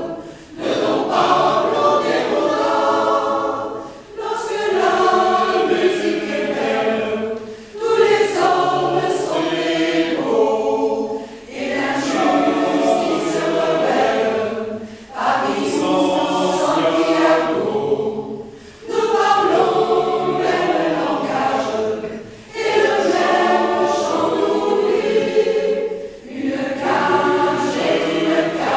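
Mixed choir of women's and men's voices singing under a conductor, in phrases of about four seconds with a short breath between each.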